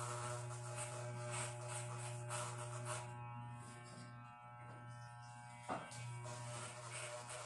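Electric hair clipper running with a steady buzz. For about the first three seconds it rasps through hair, then it runs with less cutting, and there is one sharp knock near the end.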